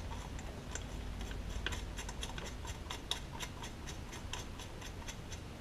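Faint, irregular light clicks and ticks, a couple a second, of hands handling and turning a small metal threaded fitting in an engine bay.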